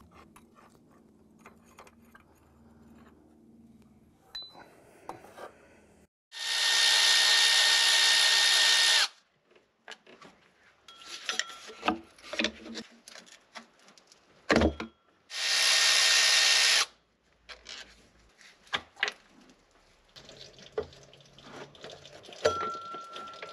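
Cordless electric ratchet running twice with a steady whine, the first run about three seconds long and the second about a second and a half, spinning out the engine's front timing-cover bolts. Light clinks of tools and loose bolts come in between.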